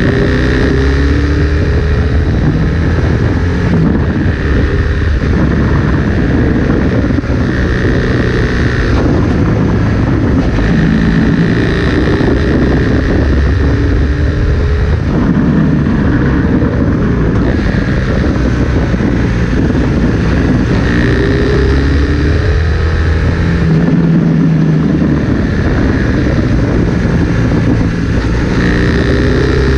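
Motorcycle engine heard from the rider's seat, its note rising and falling repeatedly as the bike accelerates and eases off, over a steady rush of wind.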